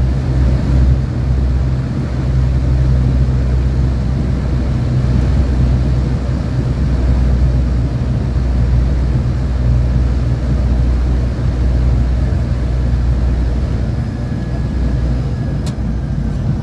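Cabin noise of a DHC-6 Twin Otter's Pratt & Whitney Canada PT6A turboprop engines and propellers, a steady low drone heard from inside the cabin as the aircraft rolls along the runway after landing.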